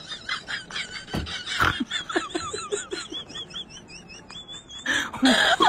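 High-pitched, rapid giggling laughter, pulsing several times a second and trailing off about four seconds in. Near the end a loud outburst of men's voices and laughter breaks in.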